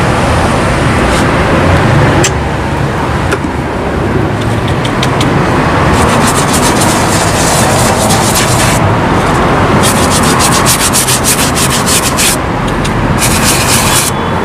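A small brush scrubbing a suede boot coated with cleaning gel. About halfway through, the strokes turn quick and rapid, several a second.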